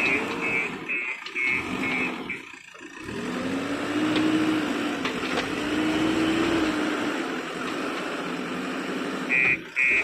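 Bulldozer's diesel engine working under load, its pitch rising and falling, with a reversing alarm beeping about two to three times a second at the start and again near the end.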